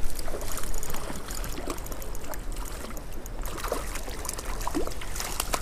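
Water splashing and trickling as a hooked rainbow trout is played at the surface of a small creek, with scattered small splashes.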